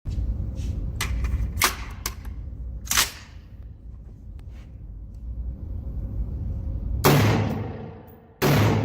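Gunshots at a shooting range: a few sharp cracks in the first three seconds, then two loud shots about a second and a half apart near the end, each followed by a long echoing tail.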